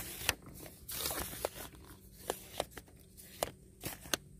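Close handling noise: irregular sharp clicks and short rustles, about nine in all, from hands working a fishing rod and line right at the phone's microphone.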